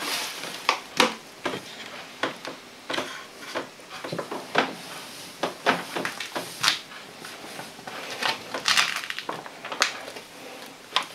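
A hand squeezing and churning a wet yeast sponge in an enamel bowl, giving irregular wet squelches and soft knocks. Later a paper flour bag rustles as flour is shaken out of it into the bowl.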